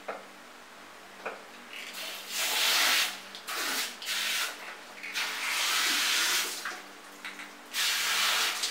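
Handheld bidet sprayer hissing in about four short bursts as water sprays into a toilet bowl, the first burst the loudest.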